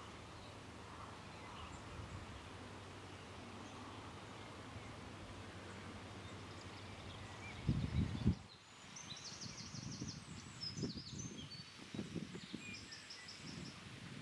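Faint outdoor field ambience with steady low background noise and a loud low rumble about eight seconds in, such as wind or handling on the microphone. In the second half a small bird sings faint high trills, with a few more low rumbles.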